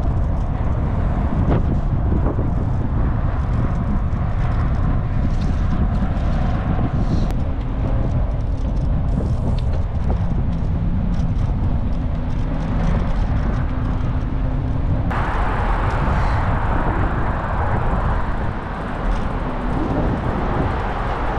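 Steady loud rumble of wind and road noise from travelling outdoors, heaviest in the low end. The sound changes abruptly twice, where separate clips are cut together.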